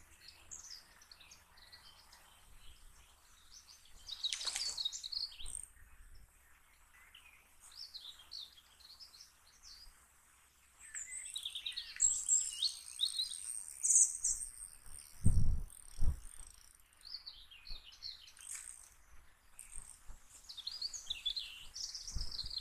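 Small birds chirping and singing, with several calls overlapping and the busiest stretch in the middle. A little after the middle come two dull low thumps close together, louder than the birds.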